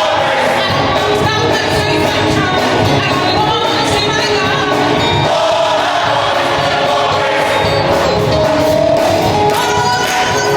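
A gospel choir singing with a band backing, many voices holding and bending sung notes together.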